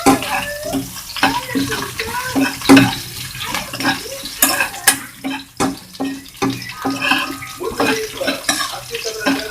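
Crushed ginger and garlic sizzling in hot coconut oil in a pan while a spatula stirs them, with repeated scrapes and knocks of the spatula against the pan.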